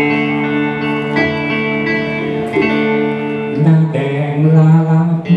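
Live band music: a slow song led by electric guitar playing long held notes, louder in the second half.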